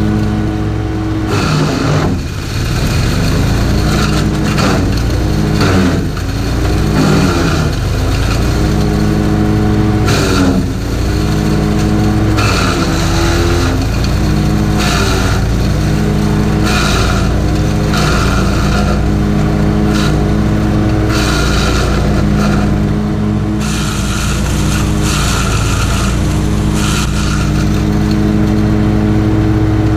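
Honda GX390 single-cylinder engine of a DelMorino Scutum SCGX 390 wood chipper running flat out while branches are fed in. Its pitch sags and recovers several times in the first half as the rotor bites into the wood. Over it come repeated crackling and crunching bursts of branches being chipped.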